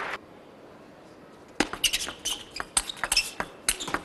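Low hall tone for about a second and a half, then a table tennis rally: a celluloid ball clicking sharply off the bats and the table, about three or four hits a second, some with a short high ring.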